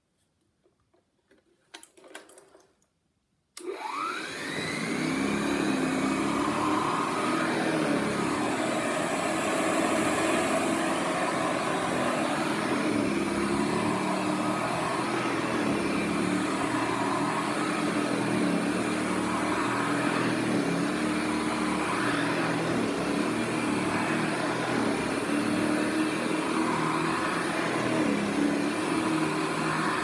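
Hoover 700 upright vacuum cleaner switched on a few seconds in: its motor whine rises as it spins up, then it runs steadily, the pitch wavering up and down as it is pushed back and forth over carpet.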